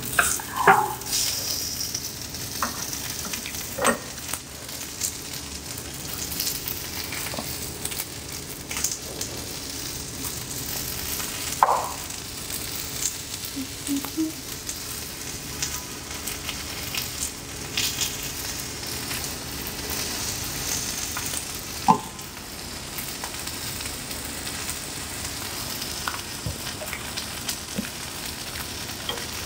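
Slices of raw beef sizzling steadily on the hot griddle plate of an electric grill-and-hotpot pan. A few sharp taps come now and then, loudest about 12 and 22 seconds in.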